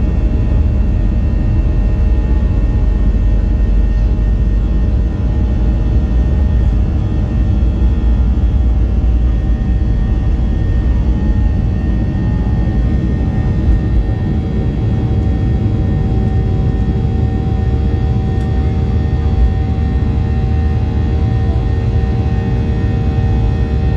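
Boeing 737-800's CFM56-7B turbofan engines at takeoff thrust, heard from the cabin over the wing, with a steady whine over a deep rumble. The rumble of the wheels on the runway dies away about 14 seconds in as the aircraft lifts off.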